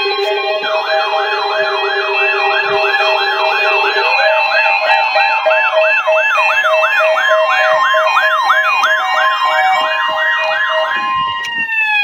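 Several weather radios sounding their alert alarms at once for a tornado warning test. Steady tones and repeating beeps are layered under a siren-like tone that sweeps up and down about two and a half times a second. All of them cut off together near the end.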